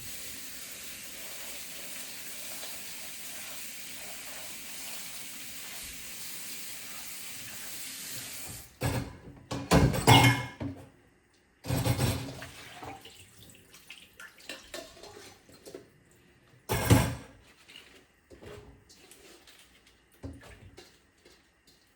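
Kitchen tap running steadily into a sink as bok choy is washed, for about nine seconds. Then the water stops and there are a few loud knocks and splashy clatters from handling the wet greens in the sink, the loudest about ten and seventeen seconds in.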